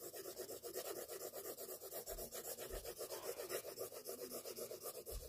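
Graphite pencil rubbing back and forth on drawing paper in quick, even shading strokes, about five a second; faint and steady.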